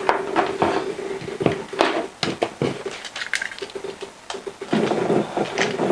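Hard plastic clicks and knocks of 3D-printed gripper parts being handled and fitted into a quick mount. A steady hum runs underneath, fading around the middle and returning near the end.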